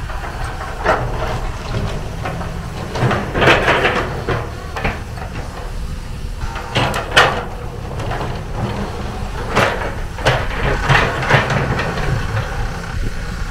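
Kobelco SK250 long-reach excavator's diesel engine running under load as the hydraulics lower the long arm to the ground, a steady low rumble broken by repeated short bursts of hissing and rattling.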